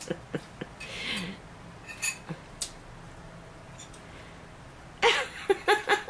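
Light clinks of a utensil against a bowl of ramen while eating, then a burst of laughter starts near the end.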